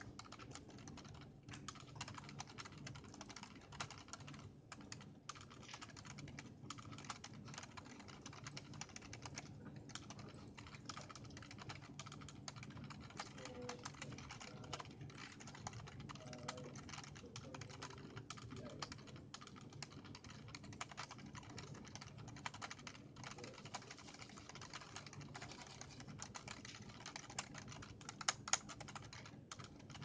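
Steady typing on an i-Rocks IK6 Crystal USB keyboard: a dense, quick run of key clicks with a few short pauses, and two louder key clacks near the end.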